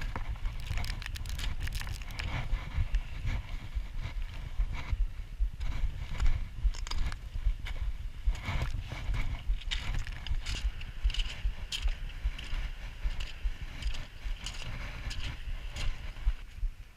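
Strong wind buffeting the microphone in gusts, a deep uneven rumble, with irregular short clicks and rustles over it.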